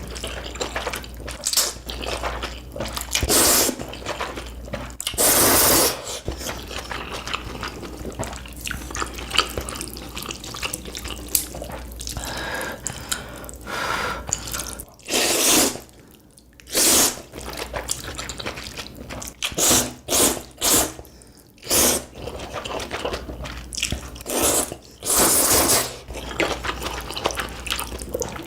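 Ramen noodles being slurped loudly, about nine times, each slurp lasting up to a second, with wet chewing and small clicks in between.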